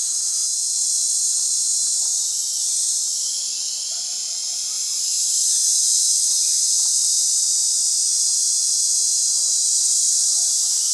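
A steady, high-pitched chorus of buzzing insects that dips slightly and then swells louder about five seconds in.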